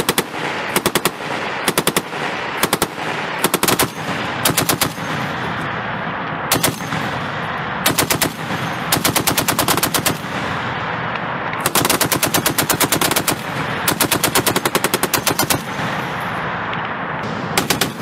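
Browning M2 .50-calibre heavy machine gun firing about ten bursts of rapid shots, some short and some over a second long, at roughly nine or ten shots a second, over a steady background rush.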